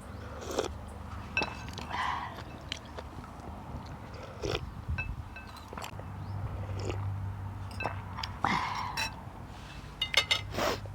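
A person chewing and biting food close to the microphone, with scattered crunchy bites and several sharp clicks near the end.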